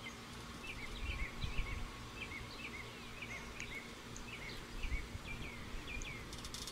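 Outdoor ambience: a small bird chirping over and over in short, quick notes, over a low, steady rumble.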